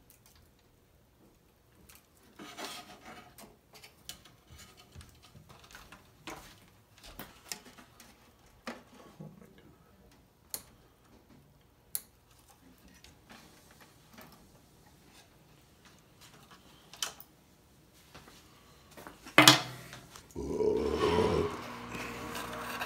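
Hands working on the wiring of a homemade animatronic, which is being stripped down: scattered small clicks, snaps and rustles of wires and plastic parts. Near the end there is one sharp, loud click, followed by a louder stretch of about a second and a half with a steady hum in it.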